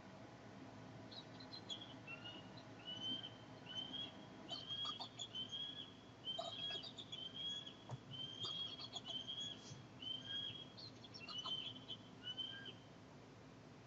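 Bald eagle calling: a long run of high, whistled chirps and squeals, about one and a half to two a second, which stops shortly before the end.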